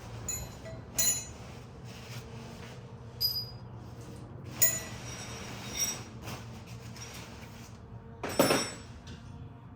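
Metal parts clinking and knocking as they are handled, about five short clinks with a brief ring, then a louder, longer clatter near the end, over a steady low hum.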